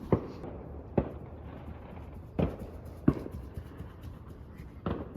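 Distant fireworks going off: seven or so dull bangs at irregular intervals, a few in quick succession near the end.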